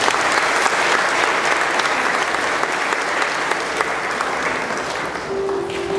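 Audience applauding steadily, easing off a little near the end. A single steady tone comes in shortly before the end.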